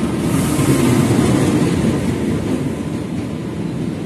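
Passenger train passing close by at speed: a steady rumble of wheels on the rails, with a hiss that swells and is loudest about a second in as the cars go past.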